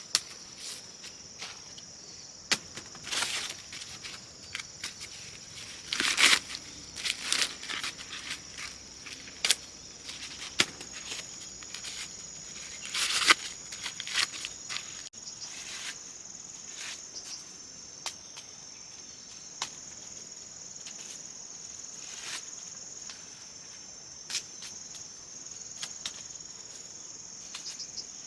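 Steady high insect chirring, with scattered crunching and rustling noises on top; the loudest come about three, six to seven and thirteen seconds in.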